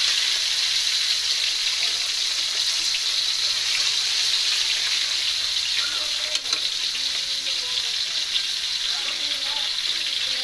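Flour-dusted milkfish pieces sizzling steadily as they fry in hot oil in an aluminium wok, with one sharp clack of metal tongs against the wok about six seconds in.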